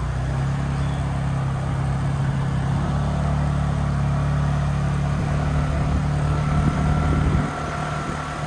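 Motor scooter engine running steadily while riding along, a low hum with a faint wind rush. The engine note drops and thins near the end.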